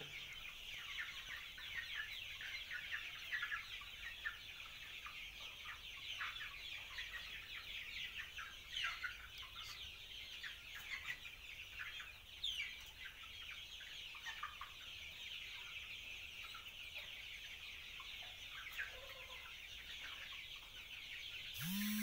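A large flock of young Nati cross (native crossbred) chickens cheeping and clucking, many short high calls overlapping without a break. A louder sound cuts in just before the end.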